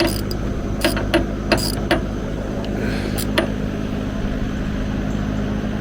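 A series of sharp clicks and knocks from hand work on the car's plastic interior parts, several in the first two seconds and two more about three seconds in, over a steady low hum.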